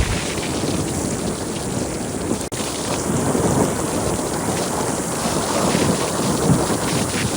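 Ocean surf washing onto the beach, with wind buffeting the microphone as a low rumble.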